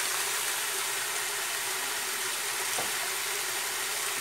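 Meat and cassava chunks with spices sizzling in an open aluminium pressure cooker pot on the stove, a steady hiss.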